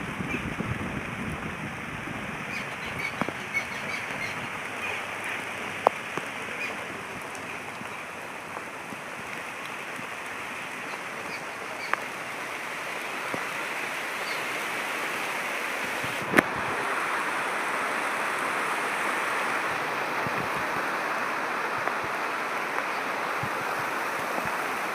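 Steady rain hiss with small birds chirping over it, the chirps mostly in the first few seconds. The rain grows a little louder about halfway through, and a few sharp ticks stand out, the loudest about sixteen seconds in.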